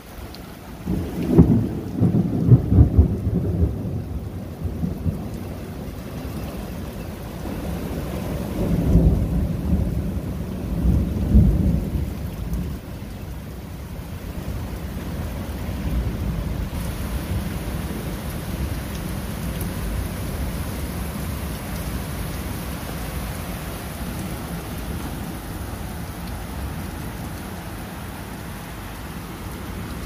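Steady rain falling, with two long rolls of thunder: one starting about a second in and lasting several seconds, another from about eight to twelve seconds in, then only the rain.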